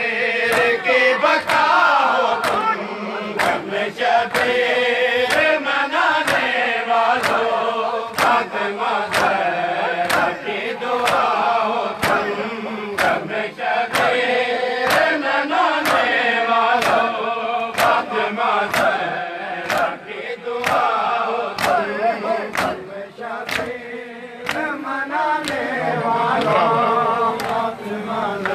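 A group of men chanting a devotional dua together in unison, a long melodic chant, over a sharp beat struck at an even pace a little faster than once a second.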